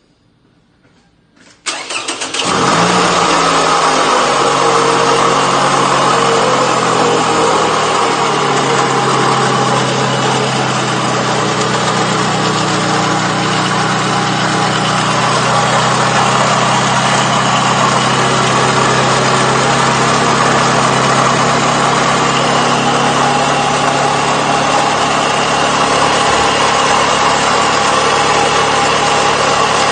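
A 2009 Toyota Camry engine (160k miles) is started about two seconds in. Its idle drops over the next several seconds and then runs steadily, with a rumbling, rattling, slightly wheezing sound that the owner thinks comes from the center of the engine block rather than the belts.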